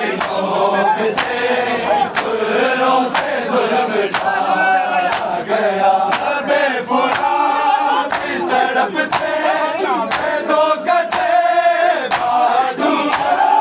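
A crowd of men chanting a noha, the Shia lament, together in unison. Sharp slaps come at about one a second throughout, in the manner of matam chest-beating that keeps time with the lament.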